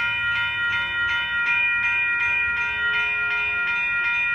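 Railroad grade-crossing warning bell ringing in a steady rhythm, about two strikes a second, while the crossing signals are active.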